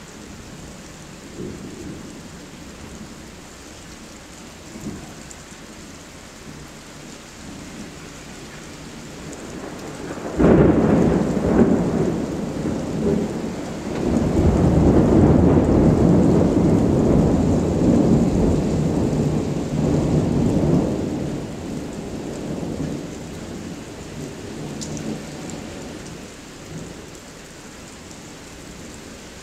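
Thunder during steady rain. About ten seconds in a sudden sharp crack breaks out, followed by a long rolling rumble that swells again and fades away over roughly ten seconds.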